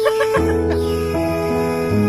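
Background music: held notes that change about every half second, with a run of short quick notes at the start.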